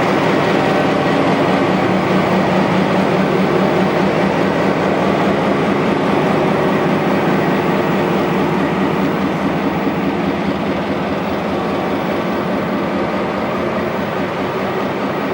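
GMD diesel locomotive 6540 running steadily, its engine hum layered with rail noise, easing slightly in loudness over the second half.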